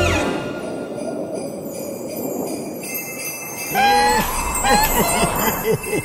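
Jingling sleigh bells in a Christmas-themed intro jingle, with gliding pitched notes joining in about four seconds in.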